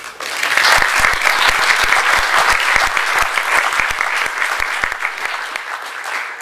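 Audience applauding, at full strength within about half a second and easing off gradually toward the end.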